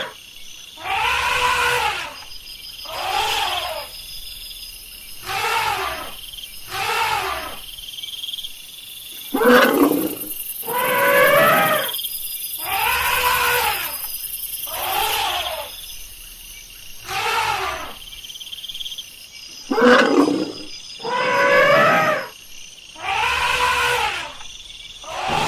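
Elephant calling over and over: about a dozen separate calls, each a second or two long, rising and then falling in pitch, roughly every two seconds.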